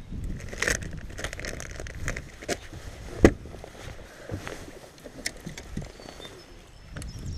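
Scattered clicks and knocks of gear being handled in a fishing boat, with one louder thump about three seconds in, over a low rumble of wind on the microphone.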